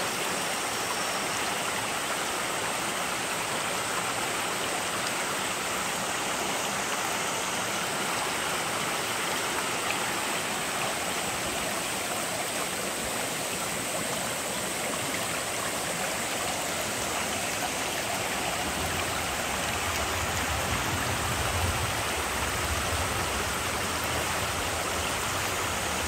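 Shallow mountain stream rushing over rocks: a steady, even rush of water.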